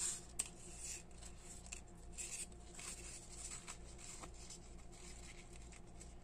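Faint rustling and rubbing of grosgrain ribbon handled and pinched at the centre, with the sewing thread drawn through it, and a sharp click about half a second in. A low steady hum lies under it.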